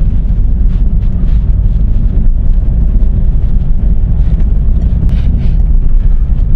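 A car driving, heard from inside the cabin: a loud, steady low rumble of engine and road noise, with a faint hiss from tyres on the wet road.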